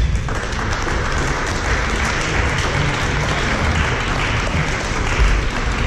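Spectators applauding in a sports hall, a dense steady clapping that grows fuller about a third of a second in.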